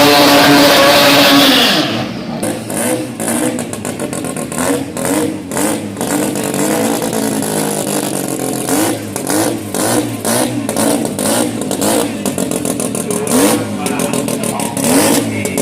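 Turbocharged rotary engine of a Toyota Corolla KE30 drag car at full throttle, a loud steady high note that cuts off sharply about two seconds in. After that comes quieter, uneven engine noise with wavering revs and many short knocks.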